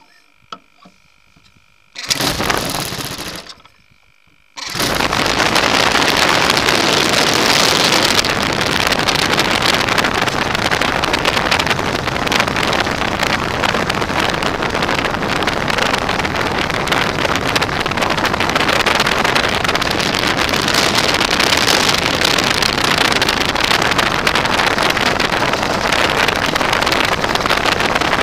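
O.S. AX155 glow engine of a model airplane being started: a short burst of sound about two seconds in, then it catches about four and a half seconds in and runs on steadily and loud. Heard from a camera mounted on the plane, right by the engine and propeller.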